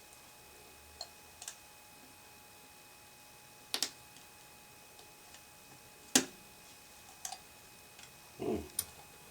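Scattered small clicks and taps of hand tools working at a plastic earbud housing, with a sharp snap about six seconds in and a short scrape near the end.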